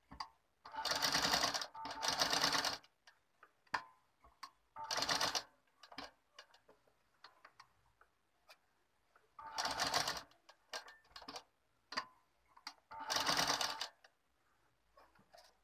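Black household straight-stitch sewing machine stitching gold lace trim onto a blouse, running in five short bursts of about a second each, with light clicks and taps between the bursts.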